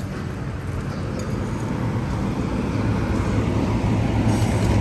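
Steady low machine hum with an even rushing noise that grows slowly louder, the background running of a restaurant's refrigerators and fans.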